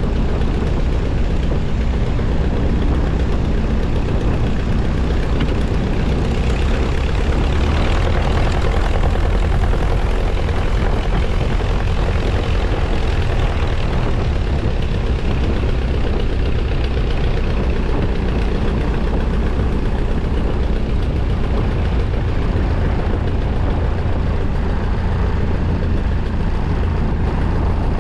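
Miles Magister's four-cylinder de Havilland Gipsy Major engine and propeller running steadily, a loud continuous drone with heavy low rumble and no clear rise or fall.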